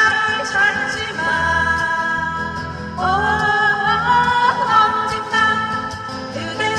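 Korean trot song played live over a backing track, its melody made of long held notes that slide up into pitch.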